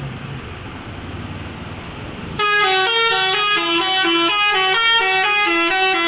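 A coach's telolet horn, a set of musical air horns, starts about two and a half seconds in and plays a fast tune of stepping notes. Before it comes the low rumble of the approaching bus.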